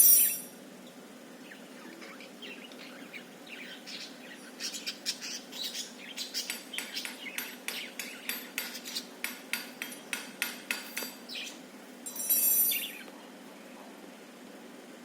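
Budgerigar chattering: a loud harsh squawk at the start, then a run of quick sharp clicks, about three a second, for some seven seconds, and another harsh squawk near the end.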